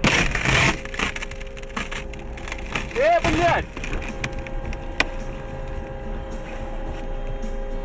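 A car running into the rear of a road-works truck, heard from inside the car: a loud crash at the start, then crunching and rattling. A brief voice-like cry rises and falls about three seconds in, and a sharp click comes about five seconds in.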